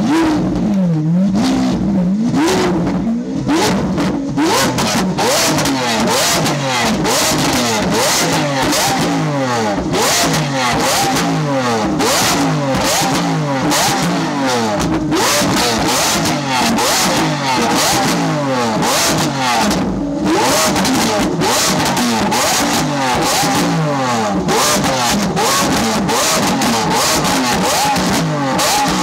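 Lamborghini Aventador LP700-4's 6.5-litre V12 being blipped over and over, its pitch climbing and falling back about once a second. Sharp cracks and pops come from the exhaust as the revs drop.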